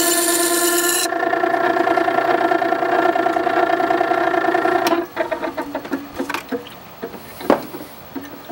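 Makita 9820 electric water-stone sharpener's motor running with a steady hum, while the steel plane iron hisses against the 120-grit wheel for about the first second before it is lifted off. The hum drops away about five seconds in, followed by a few light knocks and one sharper knock near the end as the sharpening jig is handled.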